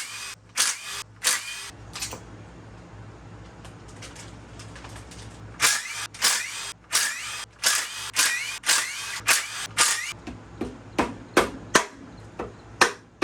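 Repeated sharp metal-on-metal taps, each with a short ring, on the stuck pulley of a Mitsubishi 4G63T engine, struck to break free Loctite holding it on. A handful of taps come in the first two seconds, then a pause of a few seconds, then steady tapping at about two a second through the rest.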